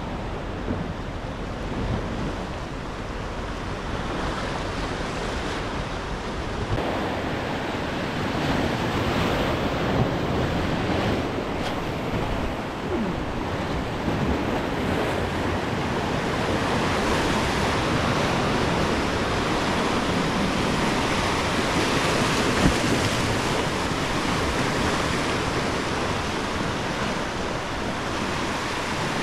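Ocean surf washing in and breaking over shoreline rocks in a steady rush, fuller in the second half, with wind on the microphone.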